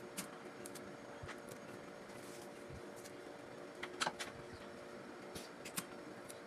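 Short crisp crackles and taps of plastic 1000-peso banknotes being handled and laid on a table, loudest about four seconds in, with a couple more near the end. A steady low hum runs underneath.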